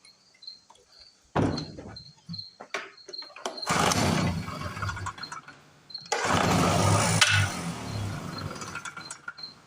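Small two-stroke portable generator engine pull-started, catching and running for a couple of seconds at a time, twice, then dying away. It will not stay running because its governor spring is backed off, so the throttle never opens. Crickets chirp steadily underneath.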